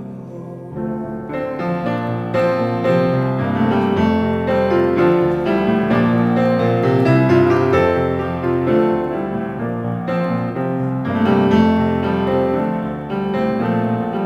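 Piano playing an instrumental passage of a slow ballad, chords and melody notes struck in a steady rhythm with no voice.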